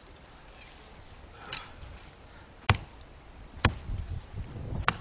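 Hatchet chopping into a thick piece of dry wood, four sharp strikes about a second apart.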